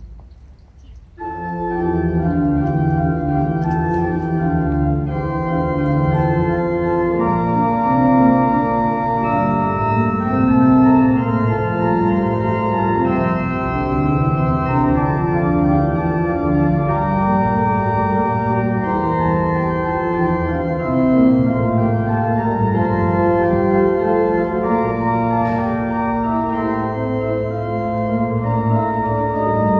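Organ music: sustained chords over a moving bass line, coming in about a second in after a brief quieter moment.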